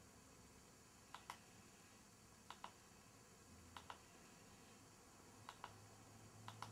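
Faint double clicks, five pairs about one every second and a quarter, one pair for each letter picked on a smart TV's on-screen keyboard with a pointer remote.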